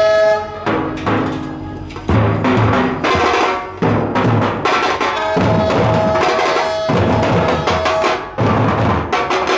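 Percussive music with drums. A steady, held tone sounds for nearly two seconds a little over five seconds in.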